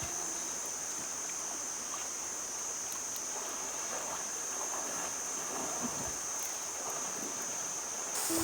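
Steady rush of flowing river water, with a constant high-pitched whine above it.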